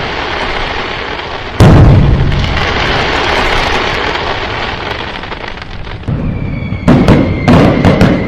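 Firecrackers going off: a loud bang about a second and a half in trails off into a long crackling rumble, then several sharp bangs come in quick succession near the end, with a steady high whistle under them.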